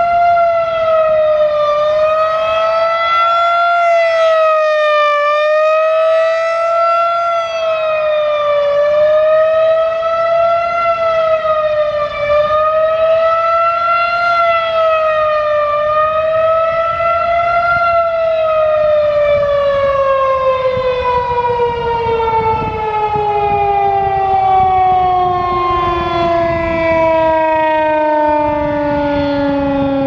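Federal Signal 2001-130 rotating electromechanical warning siren on a fast wail: its pitch swings up and down about every three and a half seconds. From about eighteen seconds in it winds down in one long falling pitch. The unit appears to be working properly.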